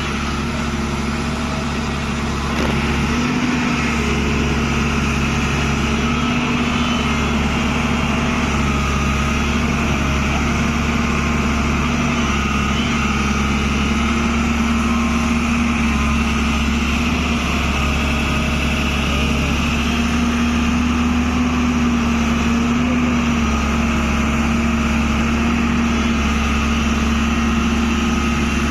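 Tata Hitachi excavator's diesel engine running steadily, its level rising slightly about two and a half seconds in and then holding.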